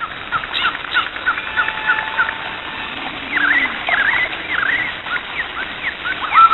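Bird-like chirps and short whistled calls, many brief rising and falling notes, with longer held whistle tones coming in near the end.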